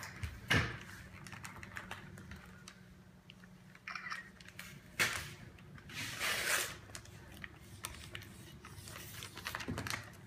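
Wrapping paper on a present being crinkled and torn by a small child's hands, in several short rustling bursts.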